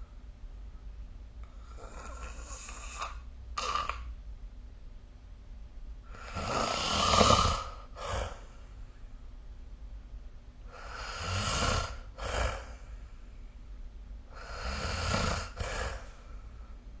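A sleeping person snoring: four snores about four seconds apart, each followed by a short breath. The snore about seven seconds in is the loudest.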